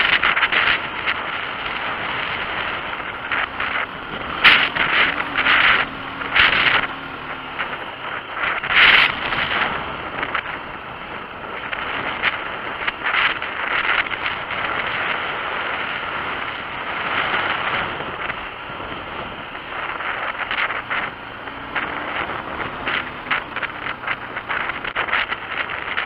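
Wind buffeting the microphone in uneven gusts while an adventure motorcycle rides a gravel dirt track, with the bike's engine faint beneath it.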